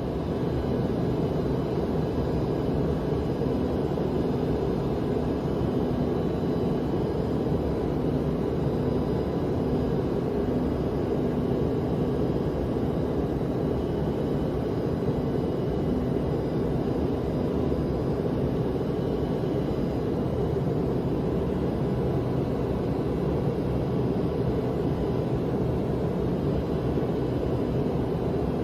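Steady cabin noise of an airliner in flight: a dense, even low rush with a faint steady hum, unchanging throughout.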